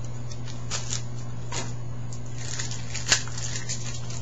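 Trading cards being handled and slid against one another: soft scuffs and rustles, with one sharp click about three seconds in, over a steady low hum.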